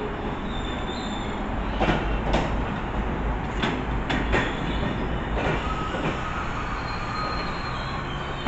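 An MBTA train passing close by: a steady rumble of wheels on the rails, a few sharp clacks over the rail joints, and a thin wheel squeal.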